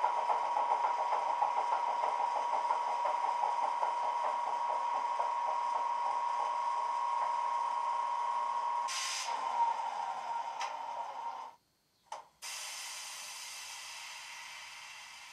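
Model Class 25 diesel locomotive's DCC sound decoder, playing through an ESU passive radiator speaker: the engine idles with a steady whine and a fine rhythmic beat. About nine seconds in there is a short burst of air hiss, and a couple of seconds later the engine sound cuts off suddenly, leaving a fading hiss.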